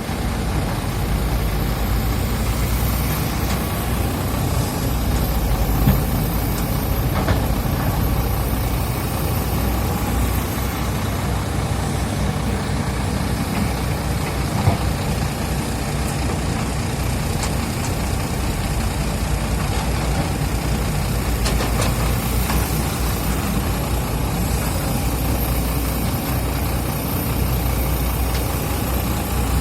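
Hydraulic excavator's diesel engine running steadily under work, a deep continuous rumble, with a few sharp knocks and a faint high whine that wavers up and down.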